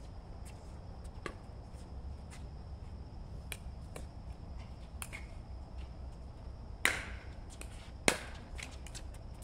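Pickleball paddles striking the plastic ball during a rally: a run of sharp pops, most of them faint, with the two loudest about a second apart near the end.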